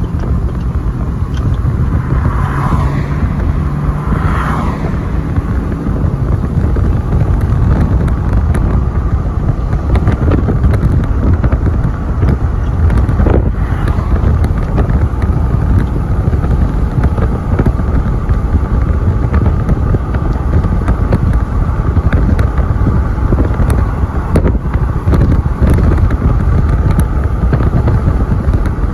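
Wind buffeting the microphone over the steady rumble of a long freight train of boxcars and autoracks rolling past, with road traffic going by. A steady low hum stops about six seconds in.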